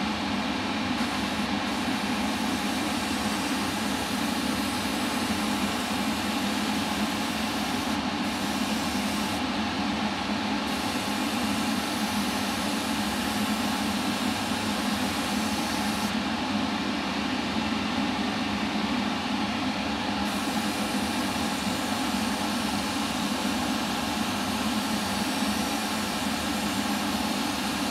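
Spray booth extractor fan running with a steady hum and rush of air. An airbrush hisses over it in passes, briefly stopping a few times.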